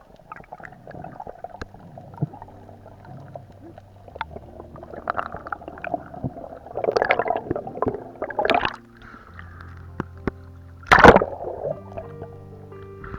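Background music with held notes, over water sounds: splashing and gurgling rushes several seconds in and a loud, sudden splash about eleven seconds in.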